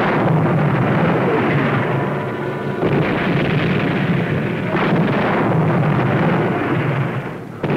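Shell bursts in the sea: a continuous rumbling roar with sharper blasts about three and five seconds in.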